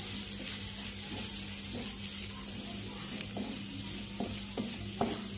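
Onion and spice masala sizzling in an aluminium kadai while a wooden spatula stirs it, with repeated scrapes and taps of the spatula against the pan.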